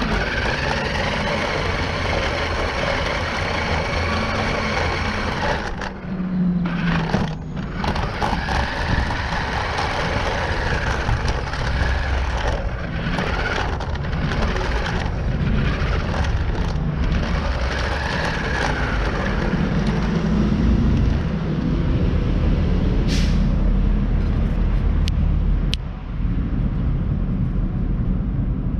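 Onboard sound of a radio-controlled truck driving over concrete: a motor and gear whine that rises and falls with the throttle several times, over a steady rumble of the tyres on the rough surface.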